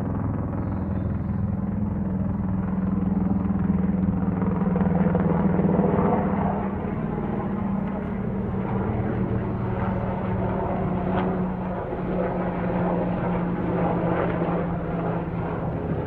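Sikorsky S-92 helicopter flying past, its rotor and twin turboshaft engines making a steady low drone. It is loudest about five seconds in, then eases off a little.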